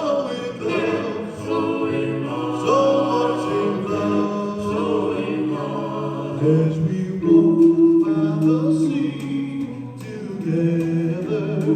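Doo-wop vocal group singing close harmony, several voices holding and moving chords together in an a cappella style, with no clear words.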